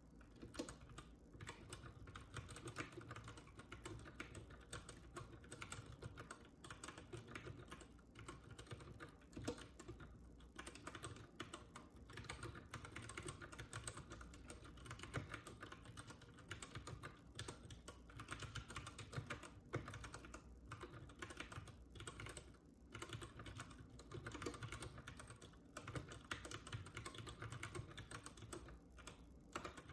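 Typing on a Keychron K6 mechanical keyboard: a fast, continuous run of key clicks with a few short pauses.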